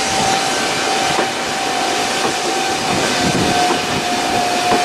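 Passenger coaches of a steam-hauled train rolling past, a steady rushing noise with a few faint clicks. A single steady high tone is held over it.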